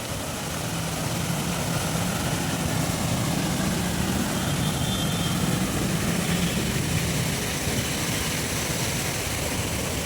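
Steady rush of fountain water spraying and splashing, with a low hum underneath.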